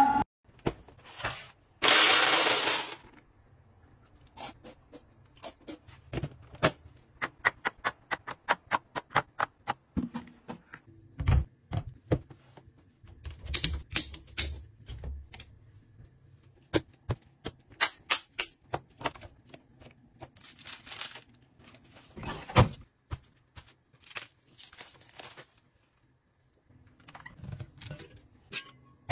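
Hands handling kitchen containers: a long run of small clicks, taps and knocks as jars, bottles and a food-processor bowl are set down, opened and closed, with a fast rattle of clicks about seven to nine seconds in and a short noisy burst about two seconds in.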